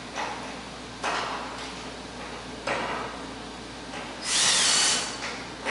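Power drill spinning in one short burst of just under a second, its whine shifting in pitch, after three short knocks.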